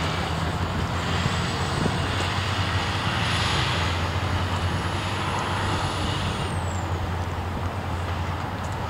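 Road traffic crossing the tracks: a school bus's diesel engine hums steadily as it drives past with cars, and its road noise swells about three to four seconds in. A faint high whine rises and then drops away about seven seconds in.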